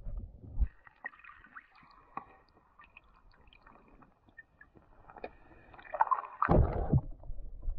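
Muffled water gurgling and sloshing heard through an underwater camera's housing, with scattered small clicks. Heavy low thumps come right at the start and again about six and a half seconds in.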